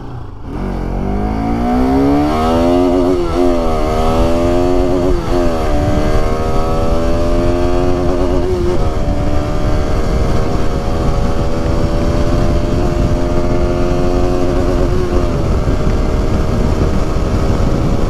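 Bajaj Pulsar RS200's single-cylinder engine pulling away and accelerating, its pitch climbing and dropping through a few quick gear changes in the first six seconds, then running at a steady cruising speed. Wind noise on the microphone runs under it.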